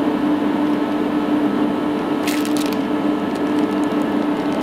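Steady hum with a low tone, and a short burst of crackling, clicking handling noise about halfway through as a bearing and digital calipers are picked up and handled.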